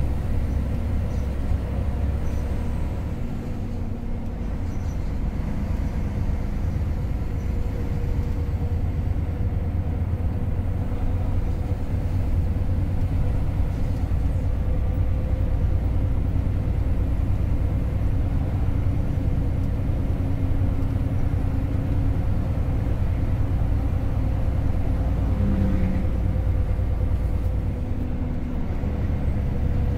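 Steady engine and road noise of a vehicle cruising on a highway, heard from inside the cabin: a continuous low rumble with a steady hum.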